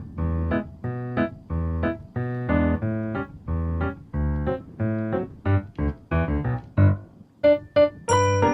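Background music: piano or keyboard chords over a steady low beat of about two pulses a second, with brighter bell-like notes near the end.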